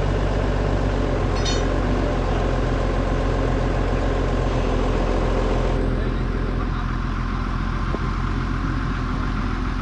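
An engine running steadily at idle, with an even low hum. Its sound thins out a little about six seconds in.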